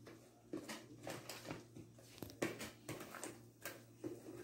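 Thick cake batter being stirred by hand in a glass bowl: soft, uneven scrapes and knocks of the utensil against the bowl, about three a second.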